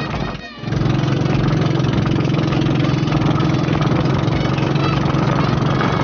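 Outrigger pump boat's engine running steadily under way, a constant hum mixed with the rush of water and spray past the hull. The sound drops out briefly about half a second in, then runs steady and loud.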